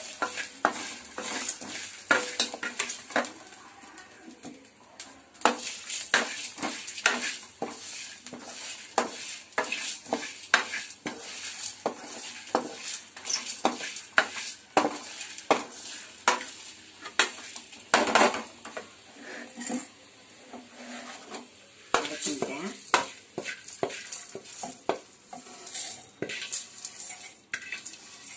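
A spoon stirring and scraping in a pan as chana dal, coriander seeds, dried red chillies and coconut are dry-roasted, in quick, irregular clicks and scrapes.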